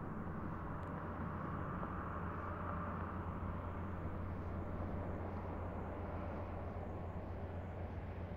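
Steady low mechanical rumble of distant industrial activity or traffic, an even drone with no distinct events.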